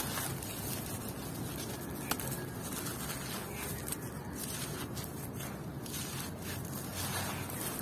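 Hands crumbling clumps of dry, gritty red soil: a continuous grainy crunching and trickle of falling grit, with a couple of sharper crackles.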